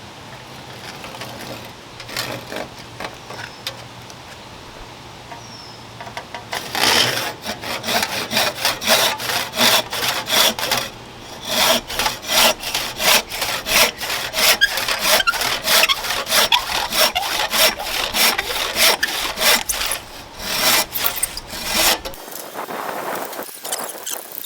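Hand saw cutting through wood with steady back-and-forth strokes, about two a second. The sawing starts about six seconds in and stops suddenly near the end.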